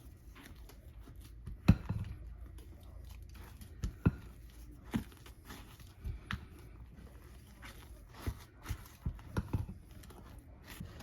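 A utensil scraping and knocking against a mixing bowl while whipped topping is folded into a cream cheese mixture, with irregular soft knocks and clicks every second or so.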